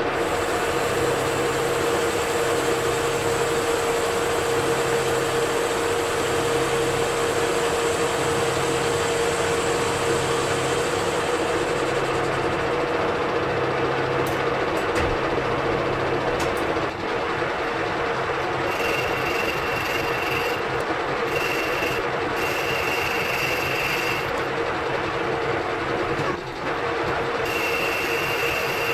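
Metal lathe running at about 630 RPM while a flange is turned with hand feed: a steady mechanical drone with a low pulse about once a second. In the second half a high whistle comes and goes several times.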